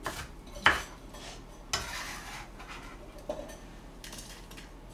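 Chef's knife knocking on a plastic cutting board, twice near the start, then a longer scrape of the knife across the board as chopped vegetables are swept up onto a plate, and a few light clicks after it.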